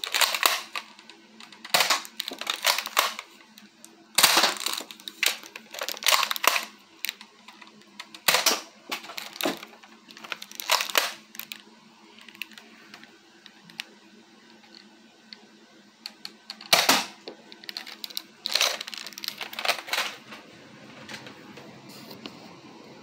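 Nerf Disruptor spring blaster being primed and fired again and again: sharp plastic clacks of the priming slide and the spring-driven shots, in groups a second or two apart, stopping near the end.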